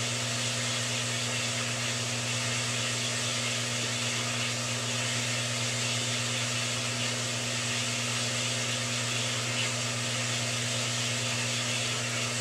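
Steady electric-motor machine noise in a workshop: a constant low hum with an even hiss above it, unchanging throughout.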